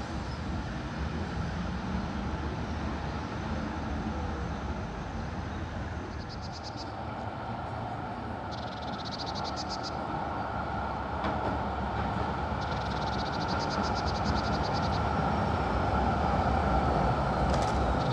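Duewag GT10NC-DU articulated tram running along street track toward the listener, a steady rumble that grows louder over the last several seconds. Short high rattling trills come several times over it.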